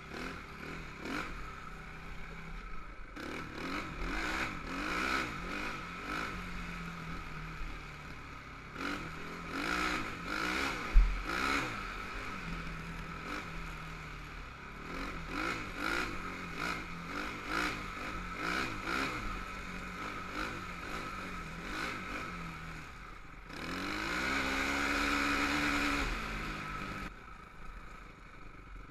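Honda TRX450R quad's single-cylinder four-stroke engine revving up and down over and over as it is ridden along a rough dirt trail, with clatter from the machine over the bumps. A sharp knock about eleven seconds in, and a long, high held rev near the end.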